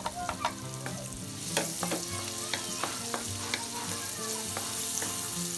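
Diced onions and garlic sizzling in melted margarine in a steel wok, with a wooden spatula tapping and scraping against the pan as they are stirred. The sizzle grows louder about a second and a half in.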